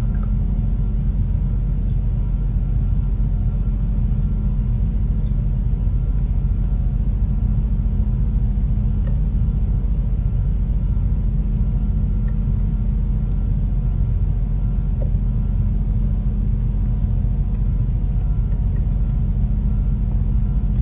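Steady low hum and rumble of running machinery, unchanging throughout, with a few faint clicks from handling the plastic light housing and a screwdriver.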